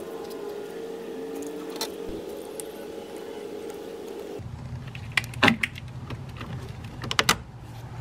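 Sharp metal clicks in two short clusters, from a battery cable's ring terminal and its nut being fitted onto the fuse-center stud, over a steady background hum that drops lower about halfway through.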